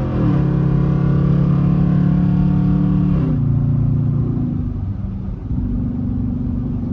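Car engine and exhaust running while driving, its note stepping down in pitch twice (near the start and about three seconds in) and then settling lower and steadier.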